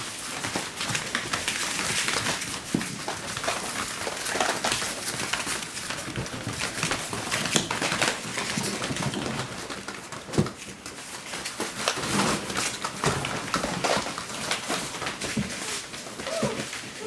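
Puppies scuffling and playing with toys on a hard floor: a busy, irregular patter of claws, paws and tugged toys, with a few brief yips.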